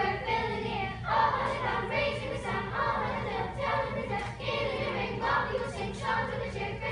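A children's choir singing together in short phrases.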